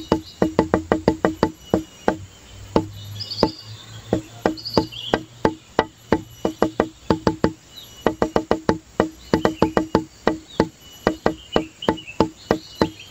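Background music made of quick, evenly spaced knocking notes like a wood block, mostly repeating one pitch, thinning out briefly a couple of times.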